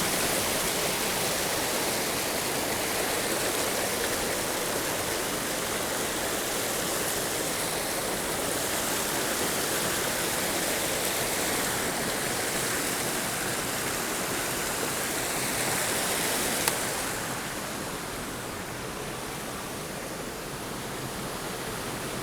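Mountain creek water rushing steadily over rocks. A single brief click comes about three-quarters of the way through, after which the water is a little quieter.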